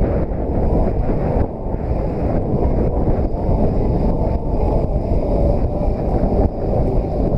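Wind buffeting the camera's microphone as the rider moves along on an off-road Segway, a steady low rumbling noise.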